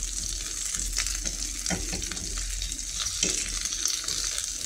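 Panko-crumbed chicken nuggets sizzling steadily in hot oil in a frying pan, with a few light clicks of a utensil against the pan as they are turned.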